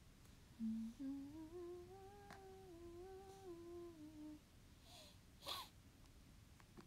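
A woman humming a short tune with her mouth closed: a few notes stepping up and down for about four seconds, trailing off. A brief breathy noise follows near the end.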